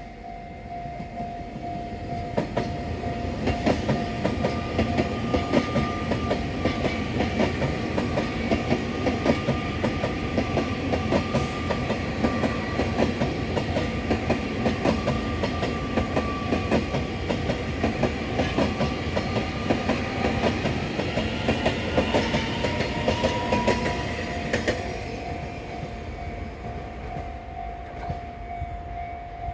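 Taiwan Railway electric multiple-unit passenger train passing close by, its wheels clicking over the rail joints in a fast, steady rhythm over a running rumble. It grows louder over the first few seconds and fades after about 25 seconds, with a steady high hum and a slowly drifting whine above the wheel noise.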